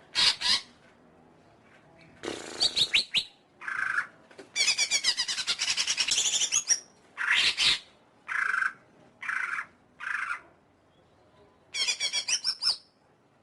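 Green leafbird (cucak ijo) singing a loud, varied song: short bursts of sharp whistled notes and fast chattering trills separated by brief pauses, with one long rapid trill of about two seconds near the middle.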